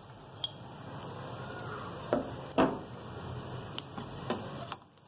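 A metal slotted spoon clinking and scraping against a stainless steel frying pan several times, the loudest knocks a little past two seconds in, as shallow-fried chana dal kababs are lifted out of the oil. Underneath, a low steady sizzle of the frying oil.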